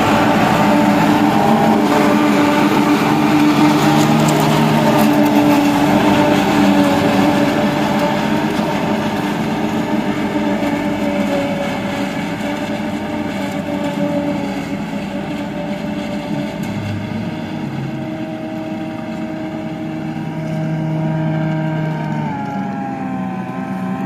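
Massey Ferguson tractor engine running steadily under load, driving a forage harvester that chops standing maize and blows the silage into a trailer. It gets somewhat quieter after about eight seconds, and its pitch drops slightly near the end.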